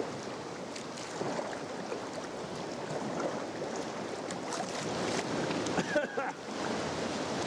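Atlantic swell washing and splashing against the rocks and around a sea kayak, a steady rush of water broken by frequent short splashes.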